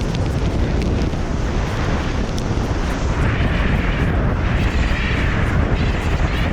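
Strong wind buffeting the microphone in a steady, loud rumble.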